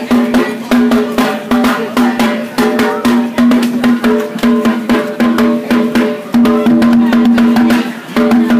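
Live street music: rapid drum strokes over a low held note that breaks off and comes back every second or so.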